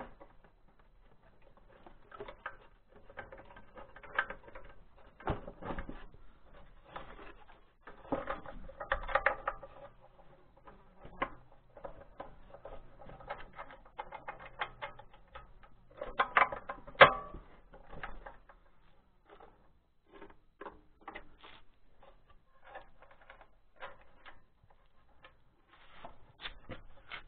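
Irregular clicks and light metallic knocks of nuts, bolts and washers being handled and fitted by hand at the mounting base of a Lifan 168F engine, with busier, louder clusters of knocks about 9 and 17 seconds in.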